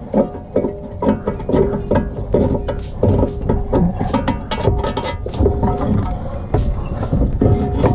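Hand socket ratchet clicking in quick strokes as an 18 mm bolt on the brake caliper bracket is worked loose, with metallic knocks between strokes. A steady hum runs underneath.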